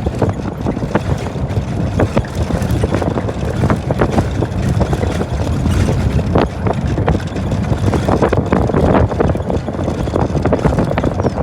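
Wind buffeting the microphone: a steady low rumble with frequent short crackles and knocks.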